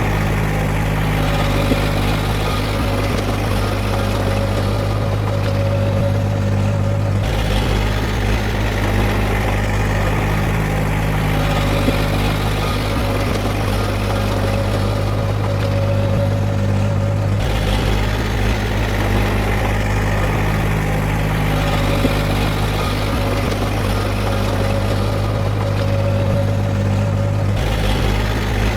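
Heavy earthmoving machine's diesel engine running steadily with a low drone. The sound changes abruptly three times, about every ten seconds.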